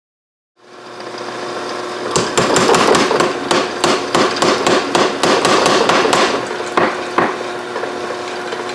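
Blacksmith's hammer striking steel stock on an anvil in a rapid run of about five blows a second for some four seconds, then two single blows, over a steady hum.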